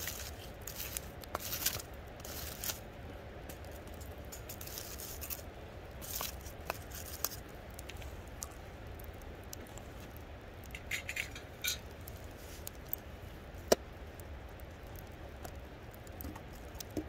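Hand handling of camp cooking gear and seasoning containers: scattered rustling, scraping and light clicks, with one sharp click about three-quarters of the way through.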